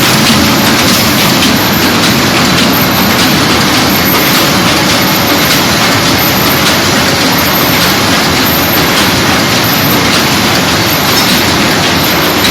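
ZD-QFP18 sheet-fed paper bag making machine running, a loud steady mechanical clatter with a faint high tick repeating about once a second.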